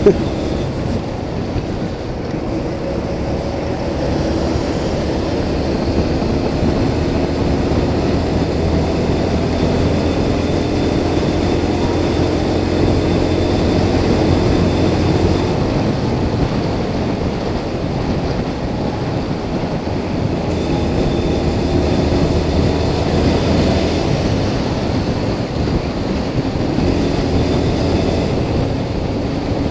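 Motorcycle riding at steady cruising speed: a continuous engine drone mixed with rushing wind and tyre noise.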